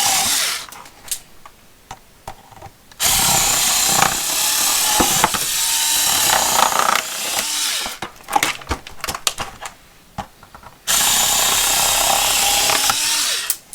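A small power cutting tool runs in three bursts while cutting through plastic blister packaging. Each burst is a steady buzzing hiss, the longest about five seconds, with clicks and handling noise between them.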